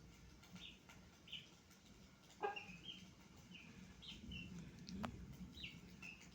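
Domestic chicks peeping: a scatter of short, faint high chirps, with a louder call about two and a half seconds in, as they squabble over a piece of tomato. One sharp tap sounds about five seconds in.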